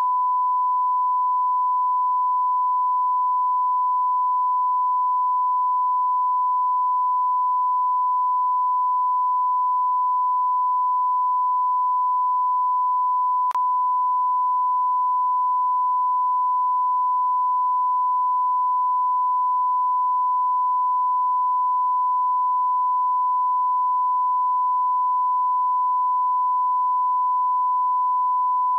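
Continuous 1 kHz sine-wave test tone, one steady pitch at a constant level. A faint click comes about halfway through.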